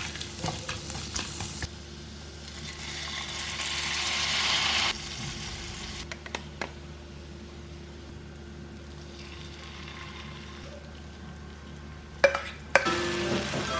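Instant noodles cooking in a pan on the stove, with a hiss that swells and cuts off sharply about five seconds in, scattered utensil clicks, and two sharp knocks near the end. A steady low hum runs underneath.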